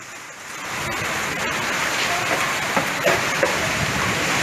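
Heavy rain of a summer thunderstorm pouring down, a steady rushing hiss that fades in over the first second.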